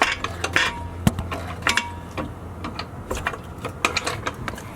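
Irregular metallic clicks and knocks over a low steady hum.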